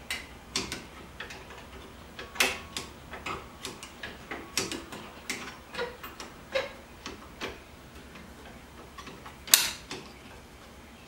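Pliers working a brake caliper's pad retaining pin loose: irregular small metallic clicks and taps, with one sharp, louder click about nine and a half seconds in.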